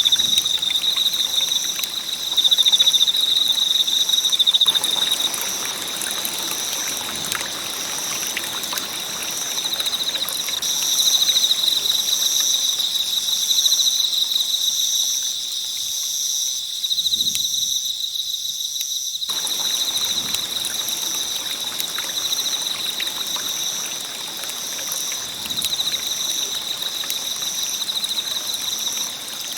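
Campfire burning with a soft hiss and scattered small crackles, over a steady high-pitched trill of insects. The fire noise drops away for a few seconds about halfway through while the insect trill carries on.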